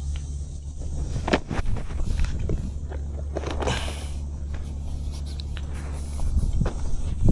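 Scattered knocks and scrapes of handling or footsteps over a steady low rumble, with a longer scraping rush about three and a half seconds in.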